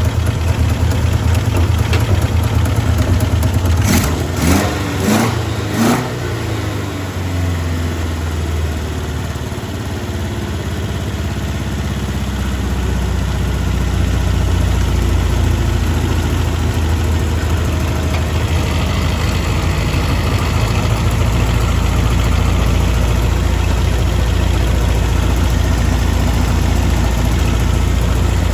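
Freshly swapped Toyota 3T-C 1.8-litre four-cylinder running in a 1983 Corolla, with a few short revs about four to six seconds in, then settling into a steady idle.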